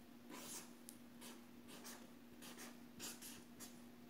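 Faint strokes of a felt-tip marker on paper, writing a name letter by letter, several short strokes a second.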